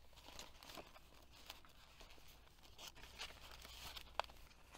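Faint rustling and soft taps of thick paper pages, tags and flaps being handled and turned in a handmade junk journal, with a sharper click about four seconds in.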